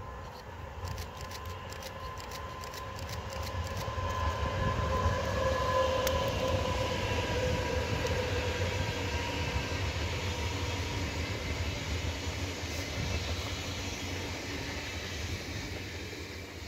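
Electric-hauled Intercity 2 double-deck passenger train passing on overhead-wire main line track. A rumble of wheels on rail builds to its loudest about five to seven seconds in, then slowly fades. A steady whine drops slightly in pitch as the train goes by.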